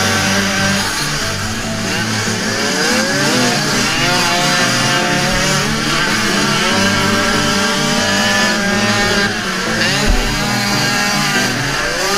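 Motocross motorcycle engines at race pace: the onboard bike's engine revving up and down repeatedly as it rides in a pack of other bikes.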